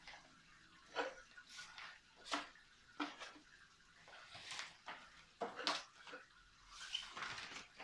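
Clear plastic sleeves holding game cards and tiles rustling and crinkling as they are picked up, slid across a wooden table and laid into a wooden drawer, in short separate rustles about every second.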